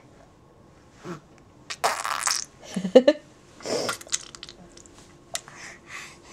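Six-month-old baby blowing raspberries, buzzing his lips to make wet, fart-like sputters in a few short bursts, the loudest two to three seconds in.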